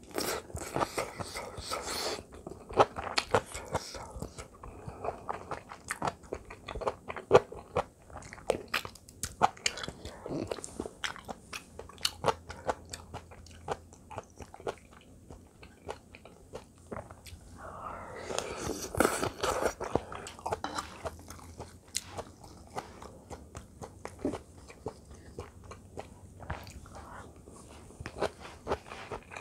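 Close-miked eating: chewing and crunching of kkakdugi (cubed radish kimchi) fried rice, with many sharp clicks of a spoon against the bowls and pan. Denser bursts of mouth noise come near the start and again about two-thirds of the way in.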